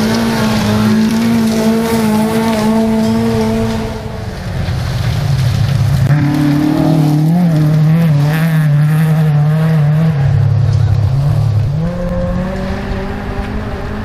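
An MG ZR rally car's engine held at high revs as it passes on a gravel stage. After a brief dip about four seconds in, a Toyota Corolla rally car's engine revs hard, its pitch wavering up and down, and drops away near the end.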